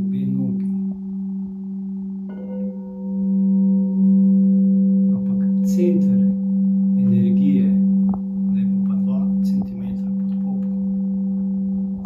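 Singing bowl sounding a steady, sustained low hum with fainter higher overtones, as when a bowl is rubbed around its rim with a mallet. A few brief soft rustles and scrapes sit over the tone.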